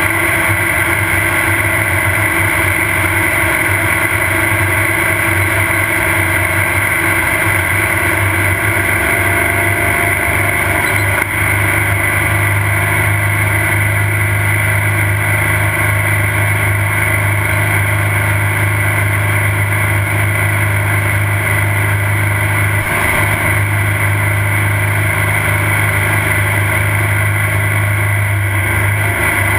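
Off-road race car's engine running steadily, a continuous low hum that grows stronger about eleven seconds in.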